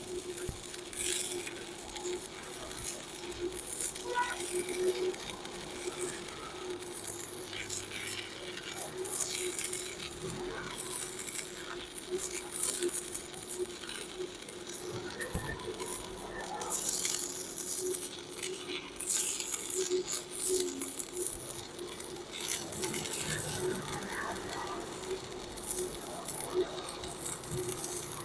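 Stick-welding arc from a Protech MK250 inverter welder burning a 4 mm electrode at its 250 A maximum: continuous irregular crackling and spitting over a steady hum. The arc is very large at this current.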